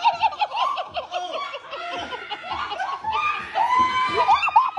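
People laughing hard, one quick burst after another, with a longer drawn-out voiced sound a little before the end.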